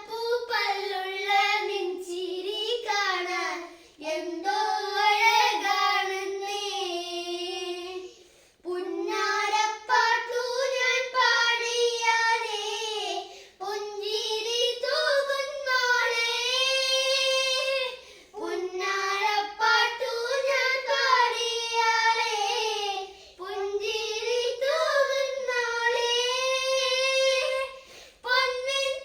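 Children singing a Malayalam folk song (nadan pattu) without instruments, in phrases of about five seconds with brief breaths between them.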